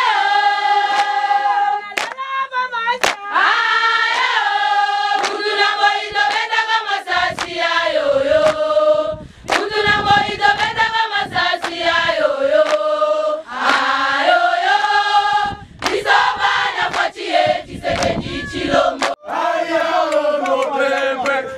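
A large group of voices singing a song together in unison, holding long notes that step up and down. A few sharp knocks sound over the singing.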